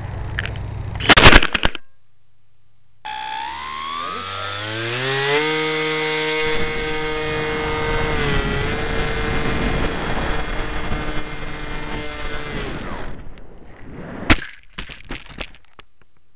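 A small foam RC plane hitting the ground with a loud clattering crash. A couple of seconds later a small electric motor whines up in pitch, runs steadily for about eight seconds and cuts off, followed by a sharp click and some brief clatter.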